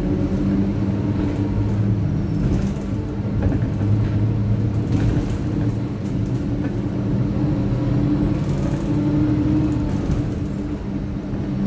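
Inside the passenger cabin of a single-deck Stagecoach bus on the move: a steady low engine drone with road noise, and faint rattles every few seconds.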